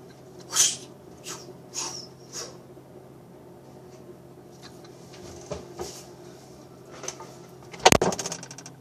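Handling noises: a few soft knocks and rustles over a steady low hum, then one loud sharp bang with a short rattle about eight seconds in, like a door or lid being shut.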